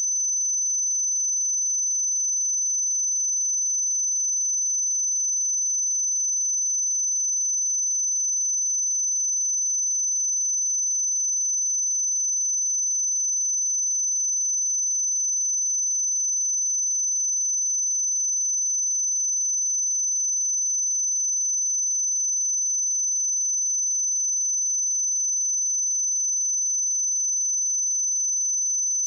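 A single steady sine-wave test tone at 6081 Hz, a high-pitched pure whistle held at an unchanging level, used to check speakers or headphones.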